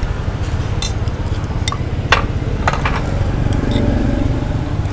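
Ceramic soup bowls and spoons clinking and knocking during fast eating: about five sharp clinks, the loudest about two seconds in, over a steady low rumble of street traffic.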